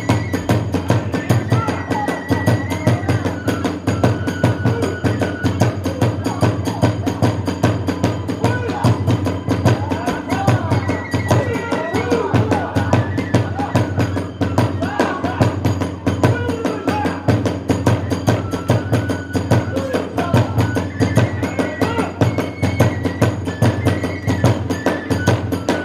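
Kagura hayashi music: fast, steady drumming with a transverse flute playing a melody in long held notes above it.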